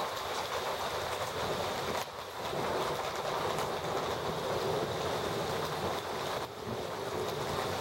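Heavy thunderstorm downpour: a steady rushing hiss of rain, briefly dipping about two seconds in and again near the end.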